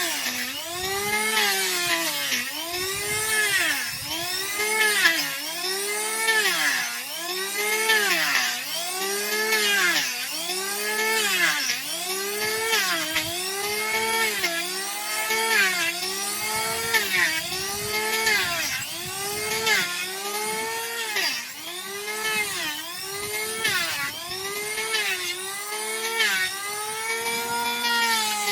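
Electric power tool grinding down donkey hoof horn. The motor's pitch sags each time it is pressed into the hoof and rises again as it is eased off, in repeated strokes about every second and a half.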